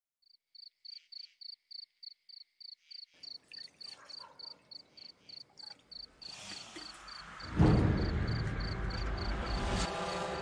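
Crickets chirping steadily, about three chirps a second. A hiss builds underneath, and about seven and a half seconds in a sudden loud low hit gives way to a low droning background that carries on under the chirping.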